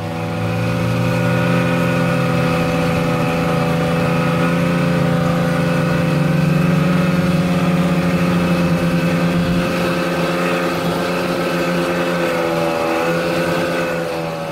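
Snowmobile engine running at a steady pace while riding along a snowy trail, heard from the rider's seat. The pitch dips slightly a little before the end.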